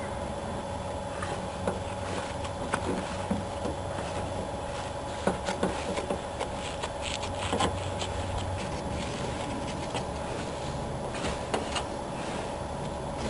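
Scattered small clicks, rubs and scrapes of vinyl roof material being handled and trimmed on a car roof, over a steady background hum.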